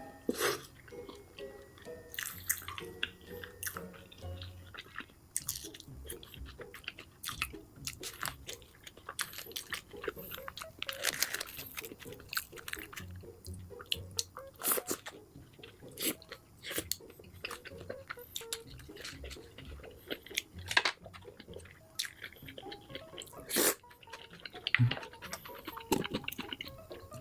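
A person chewing and biting into a burger close to the microphone: wet mouth sounds with irregular sharp clicks and smacks throughout.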